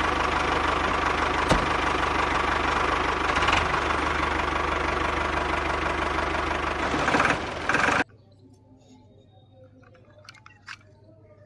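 A small handheld power tool, such as a 12V mini grinder-drill, running steadily under load and cutting off suddenly about eight seconds in. A few light clicks and taps follow.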